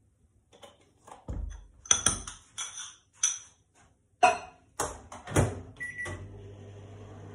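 Clicks and knocks of handling around a microwave oven, a thump as its door shuts about five seconds in, a few short keypad beeps, then the microwave starting to run with a steady hum.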